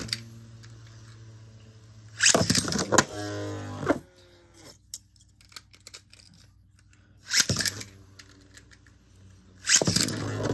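Beyblade metal tops in a plastic stadium: several sudden bursts of rattling and clacking, with steady whirring tones from spinning tops between them.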